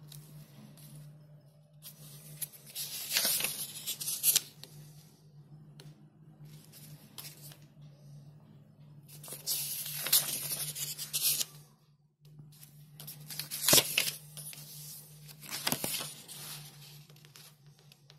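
Pages of a small paper instruction booklet being turned and handled by hand: three bouts of paper rustling, a few seconds in, about ten seconds in and around fourteen seconds, with a sharp crisp flick in the last bout.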